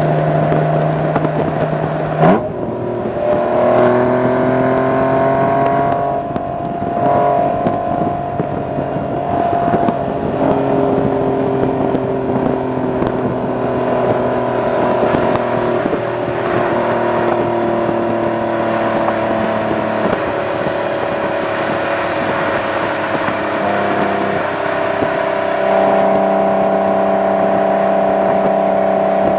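Exhaust note of a 1998 Acura NSX-T's 3.2-litre V6 through a GT Lightweight aftermarket exhaust, heard close to the tailpipes while driving at highway speed. The note is a steady drone that changes pitch several times, with a sharp rev spike about two seconds in and a louder, higher note near the end, over wind and road noise.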